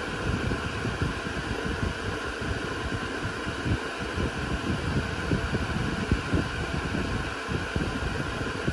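Cooling fans of a Dell Compellent SCV2020 storage array running steadily: an even whir carrying a few faint steady tones over a rough low rush.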